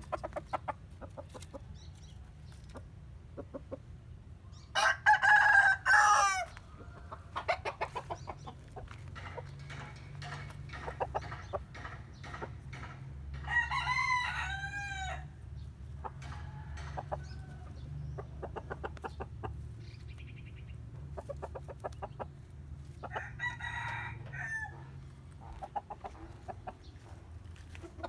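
Roosters crowing: one loud crow about five seconds in, then two fainter, more distant crows later, with chickens clucking between them. A low steady hum runs underneath.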